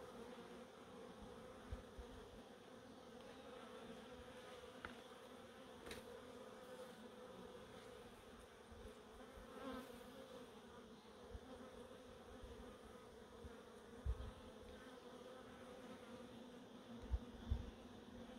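Faint, steady hum of honeybees buzzing around opened hives. A few dull low thumps come through, one about two-thirds of the way in and two close together near the end.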